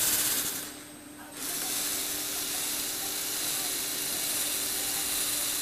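Lego Technic scissor lift's gear drive running with a steady whir and hiss; it stops about half a second in and starts again about a second later, running on slightly quieter.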